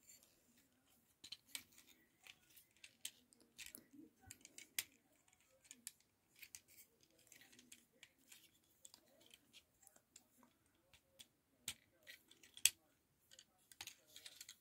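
Faint, irregular clicks and clacks of the plastic parts of a Transformers Studio Series 86 Brawn figure being handled and tabbed together, with a sharper click about three-quarters of the way through.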